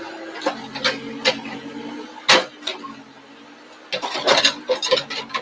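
Backhoe diesel engine running steadily while its bucket scrapes and shoves earth to backfill a grave, with sharp knocks and clatter of the bucket and stones. One loud knock comes about two seconds in, and a burst of clattering follows about four seconds in.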